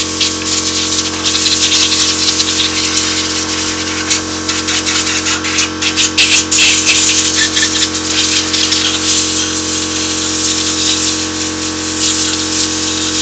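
A motor-driven pump runs steadily with water spraying in a loud, continuous hiss.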